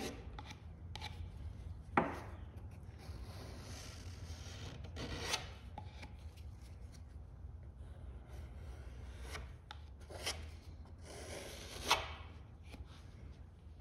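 Gloved hand rubbing and spreading epoxy over a wooden boat hull: irregular rubbing and scraping strokes, with a sharp tap about two seconds in and a low steady hum underneath.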